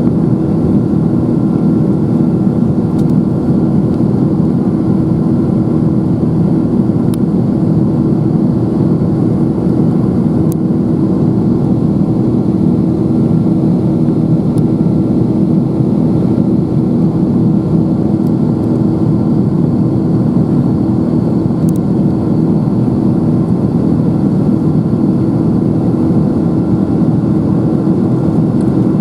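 Steady cabin noise of a Boeing 777-200 in its climb after takeoff, heard from a window seat beside the turbofan engine: an even low rumble with a constant hum running through it.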